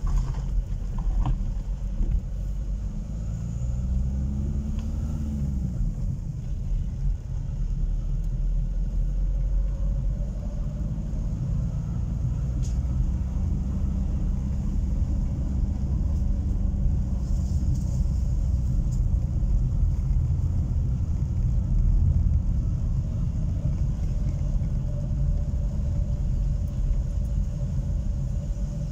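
A car driving along a paved road, heard from inside the cabin: a steady low rumble of engine and tyres, with the engine note rising and falling once a few seconds in.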